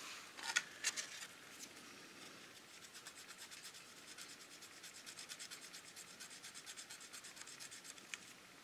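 Cotton swab rubbing in quick, even back-and-forth strokes over the painted plastic body of a scale model car, polishing the semi-gloss black paint and wiping away overspray. The rubbing is faint. A few light clicks come in the first second, and one more comes near the end.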